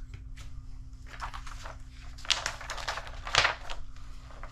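Paper rustling as a kit's instruction manual is picked up and its pages handled and turned, with two louder crackles in the second half, over a steady low hum.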